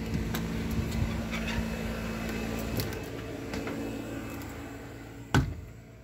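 A steady low hum with a few light clicks and knocks, then a single sharp thump of a door shutting about five seconds in, after which the hum drops away.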